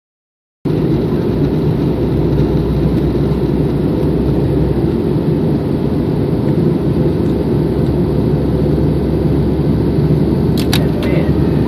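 Steady cabin noise of a jet airliner in cruise, a dense low rush of engine and airflow heard from inside the cabin by a window seat. It sets in about half a second in, with two faint clicks near the end.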